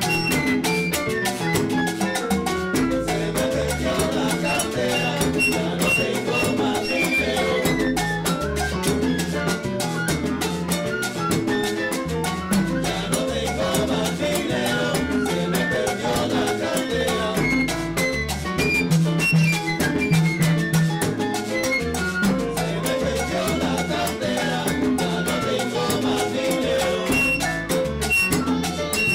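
A salsa band playing live, with dense hand percussion and cymbals driving a steady rhythm over a line of bass notes and a melody higher up.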